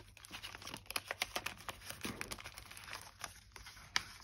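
Packaging crinkling as it is handled: a dense, irregular run of small crackles and ticks.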